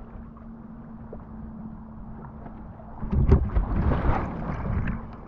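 Wind and water noise on an action camera's microphone while wingfoiling, with a faint steady hum. About three seconds in, a louder rush of wind and water lasts about two seconds.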